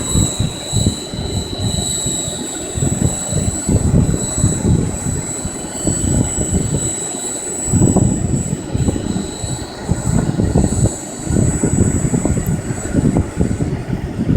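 GAUI 550 Hurricane RC helicopter flying: a steady high-pitched motor whine over gusty rumble from the rotor wash. The whine fades out near the end.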